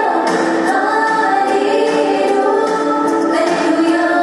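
Christian action song: several voices singing together over backing music, with long held notes.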